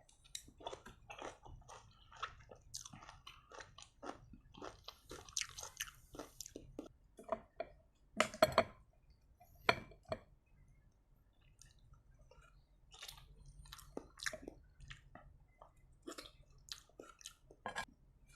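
Close-miked chewing and crunching of lime rujak, lime pieces in spicy sambal: a long run of short, wet crunches and bites, loudest about eight to nine seconds in.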